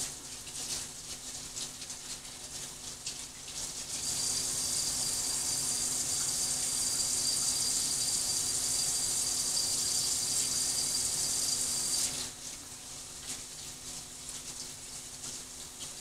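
A tap running into a sink for hand washing: a steady hiss that comes on about four seconds in and shuts off abruptly some eight seconds later, with a faint high whistle in it.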